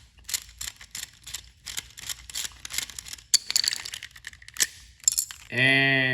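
Rapid clicks, rattles and rustling from a plastic toy train being handled. About five and a half seconds in, a man's voice starts a long held hum.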